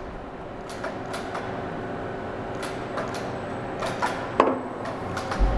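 Metal rotary indexing table housing being lowered along tapered steel locating rods onto its mounting plate: scattered light clicks and knocks of metal on metal, a short scrape about four seconds in, and a low thud near the end.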